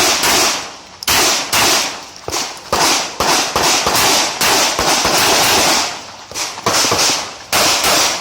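Pistol fire: about a dozen sharp, loud cracks, mostly in quick pairs with short pauses between them, each trailing a brief echo. These are the double taps of an IPSC practical-shooting stage.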